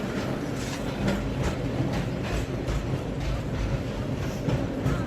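San Francisco cable car running along its track, rattling and clacking over a steady low rumble.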